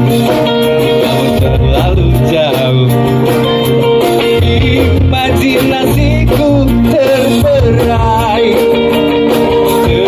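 Live band music played loud and steady, with guitar and a singing voice over a heavy bass line.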